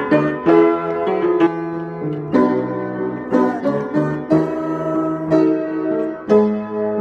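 Upright piano played with both hands: chords and notes struck about once or twice a second over a held bass.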